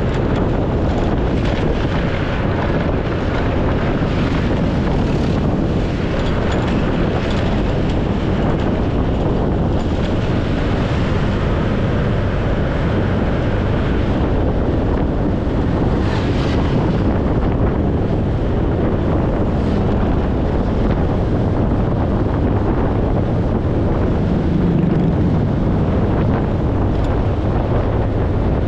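Wind buffeting an action camera's microphone on a moving motorcycle, a steady rushing noise over the motorcycle's engine and road noise.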